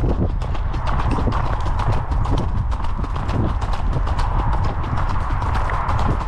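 Icelandic horse's hooves striking the ground in a quick, steady run of hoofbeats while being ridden, over a steady low rumble.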